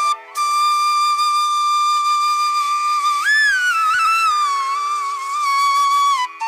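Background music: a flute-like melody holding long notes over a steady drone, with a brief break just after the start and a short rise and fall in pitch about three seconds in.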